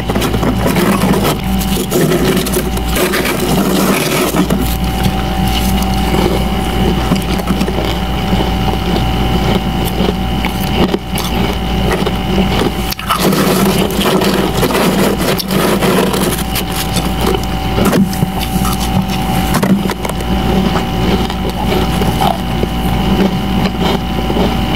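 Gloved hands scraping and scooping powdery freezer frost, a dense, irregular crunching and crackling. Under it runs a steady machine hum with a few thin whining tones.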